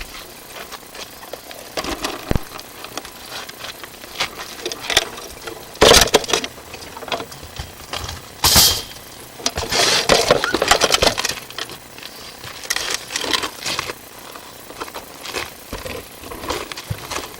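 Sewer inspection camera's push cable being fed along a drain pipe: irregular scraping, rattling and knocks, with a few louder clatters in the middle.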